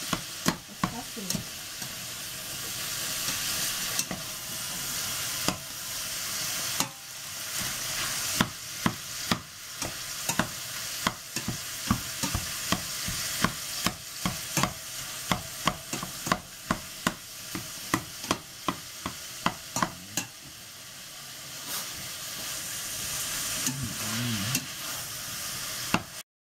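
Minced meat sizzling as it fries in a stainless steel pot, stirred and broken up with a plastic utensil that clacks irregularly against the pot.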